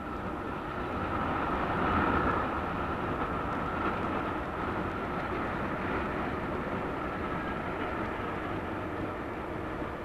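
Steady vehicle rumble with a faint hum running through it, swelling to its loudest about two seconds in and then holding.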